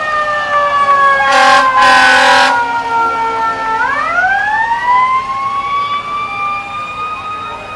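Fire engine siren wailing: its pitch slides slowly down, then rises again about four seconds in and holds high. Two short air-horn blasts come about a second and a half in.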